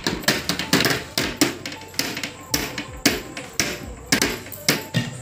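Hands tapping and slapping the bottom of an upturned aluminium cooking pot on a steel plate, making irregular knocks, to loosen a set jelly cake from the pot before lifting it off.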